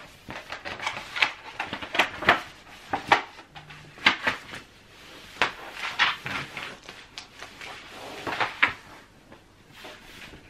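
Large paper poster print rustling and crinkling as it is unrolled and pressed flat into a picture frame by hand, with irregular light taps and knocks from the frame.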